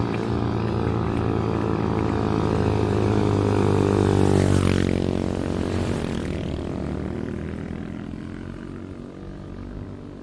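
An engine passing by: a steady pitched drone that grows louder, peaks about halfway through, then slowly fades away.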